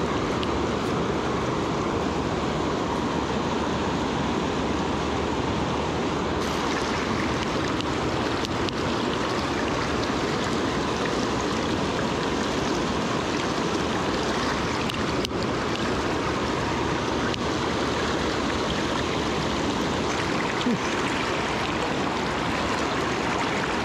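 Fast river current rushing over rocks and through riffles, a steady rush of water.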